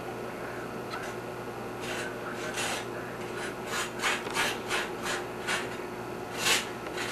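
Snow crunching and scraping in a series of short, uneven strokes, several bunched together between about two and five seconds in, with the loudest one near the end.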